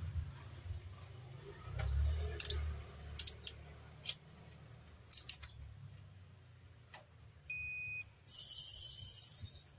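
Digital multimeter test: scattered clicks and taps as the test leads and circuit board are handled, then a short steady beep, followed by a harsher high buzz of about a second and a half as the probes touch a low-resistance path on the ballast board.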